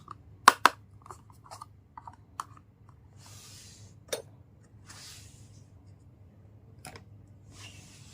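Small toys and their packaging handled close up: two sharp clicks about half a second in, then lighter taps, another click near the middle and one near the end, with a few brief soft rustles in between.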